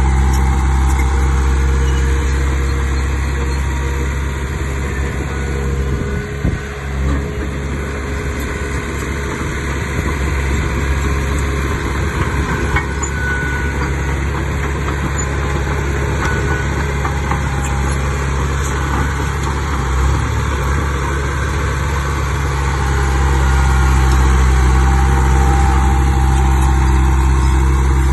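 Diesel engine of heavy earthmoving machinery running steadily, with a brief dip about a quarter of the way in and a swell in level near the end.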